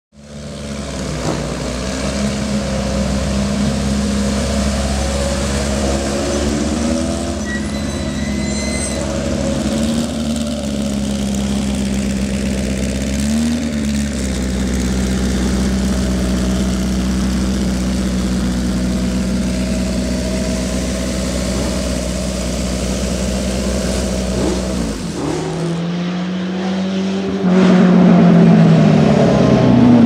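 Maserati Tipo 61 'Birdcage' four-cylinder racing engine idling steadily, with one quick blip of the throttle about halfway through. Near the end it is louder and under way, its note rising and falling as the car accelerates and lifts off.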